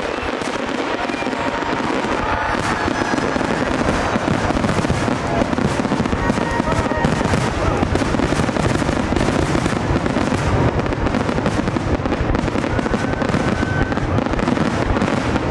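Aerial fireworks going off in a dense, continuous barrage: shell bursts and crackling follow one another with no pause, building slightly in loudness after the first second or two.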